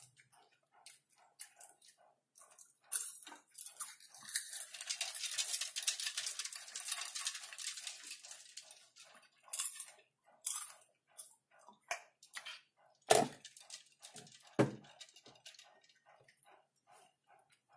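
Popcorn being chewed close to the mic, crisp crunches about three a second. A denser crackle of handfuls rustling or a full mouthful runs from about three to nine seconds in, and two sharp knocks come near the end.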